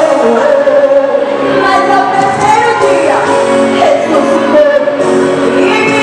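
A group of teenage girls singing a church song together into handheld microphones, amplified over a sound system.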